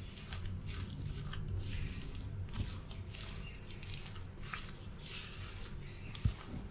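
Hands squeezing and kneading a wet batter of black glutinous rice flour and desiccated coconut in a bowl, working in freshly added melted margarine: soft, irregular squishing. There is a short low thump near the end.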